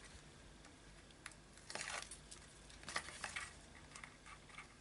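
Faint paper rustling and crinkling as the backing strip is peeled off double-sided tape on a brown paper pocket, in a few short scratchy spurts about one, two and three seconds in.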